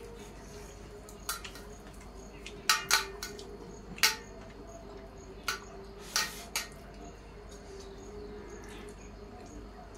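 Stainless-steel plates clinking and tapping as two people eat rice by hand, fingers and rings knocking against the metal: a scattered run of short clicks, loudest around three to four seconds in, over a steady faint hum.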